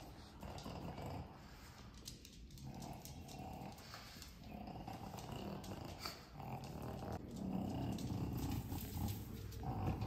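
A pug breathing noisily and sniffing in repeated short bouts as it noses around the floor.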